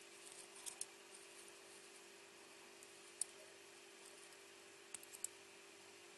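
Near silence broken by a few tiny clicks of a resistor's wire leads being bent and pushed into a small circuit board by hand: a pair about a second in, one at about three seconds and a quick cluster of three near five seconds, over a faint steady hum.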